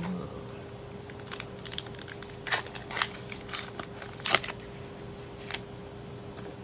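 Foil trading-card booster-pack wrapper crinkling and crackling in the hands, a run of sharp crackles over about three seconds with the loudest near the end.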